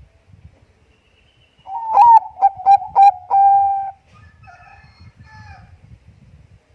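Bangkok perkutut (zebra dove) cooing its song: a lead-in note, four short clipped notes, then one long held note, starting about two seconds in. A fainter, higher call follows just after, over a low rumble.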